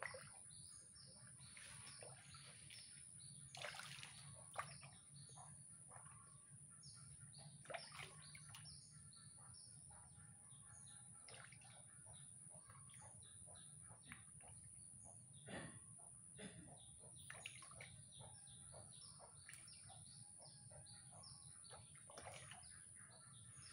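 Faint outdoor ambience of small birds chirping over and over, with a steady high-pitched whine and a few soft knocks.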